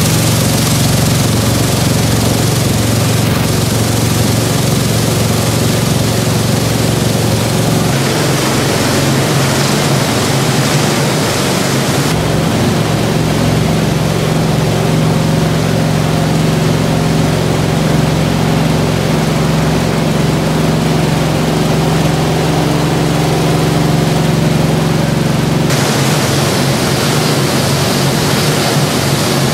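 Industrial shredder running steadily as it grinds baled aluminium cans down to flakes: a constant low motor hum under a loud, noisy grinding. The sound shifts abruptly in character about a third of the way in and again near the end.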